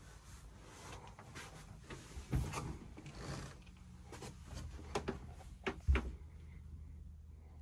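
A wooden cabin door being opened by hand: a few clicks and knocks from the door and its latch, the loudest about six seconds in, over a low steady hum.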